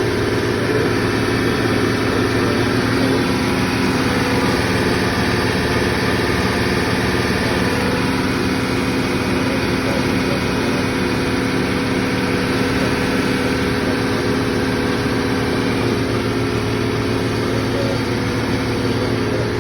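Belt-driven Vilter R22 refrigeration compressor running steadily: a loud, even machinery hum with several held tones that does not change.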